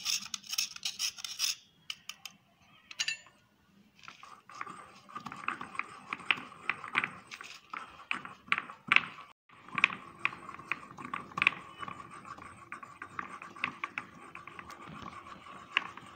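Salt and red chilli being crushed and ground by hand in a small container: irregular taps and scrapes of the pounder against the pot, with a short burst of scraping at the start and a pause about two to four seconds in.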